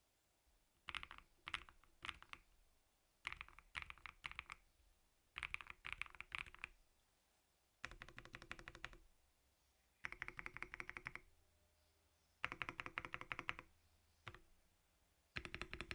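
Typing on a CIY GAS67 mechanical keyboard with lubed Akko CS Silver POM linear switches, lubed stock stabilizers and a tempest mod: fast keystrokes in short bursts of about a second each, with brief pauses between bursts.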